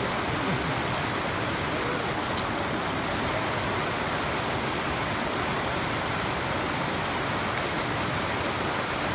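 A fast-flowing mountain creek rushing over rocks: a steady, full rush of water, with a few faint clicks.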